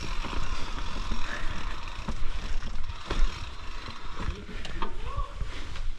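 Mountain bike rolling fast over a rough dirt trail: steady tyre and rushing noise under a low rumble, with irregular knocks and rattles from the bike as it hits bumps.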